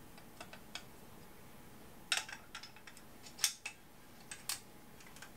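A handful of short metallic clicks from a reproduction Remington New Model Army cap-and-ball revolver being reassembled by hand, its parts being fitted back into place. The loudest clicks come about two and three and a half seconds in.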